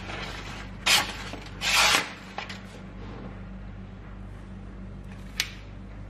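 Damascus folding knife blade slicing through a sheet of paper: two cuts near the start, the second one longer, and a short sharp one near the end, over a low steady hum.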